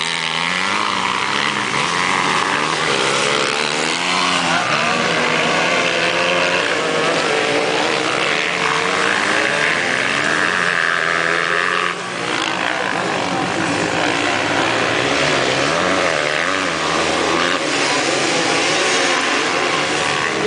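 Several motocross bikes racing, their engines revving up and falling back with the throttle, with several engine pitches overlapping. The level dips briefly about twelve seconds in.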